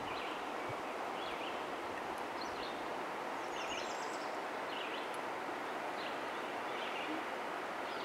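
Steady rushing of flowing river water, with a small bird chirping short calls about once a second.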